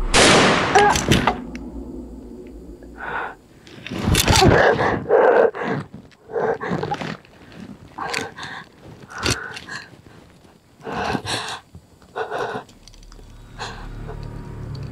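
A single gunshot from a long gun, ringing out for about a second. It is followed by a woman's string of short pained moans and gasps, one every second or so, from a gunshot wound to the shoulder.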